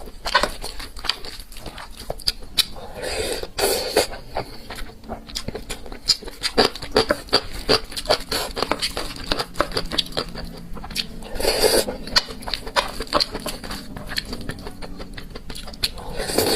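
Close-miked chewing and mouth smacking: many quick, irregular wet clicks, with a few longer, louder swishes spread through.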